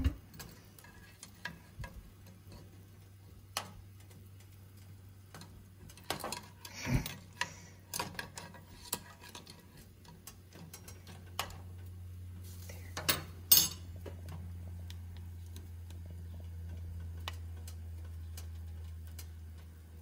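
Scattered light clicks and taps of a plastic spoon knocking against a small saucepan of boiling water, with a sharp cluster of clicks about two-thirds of the way through. A low steady hum sets in about halfway and grows a little louder.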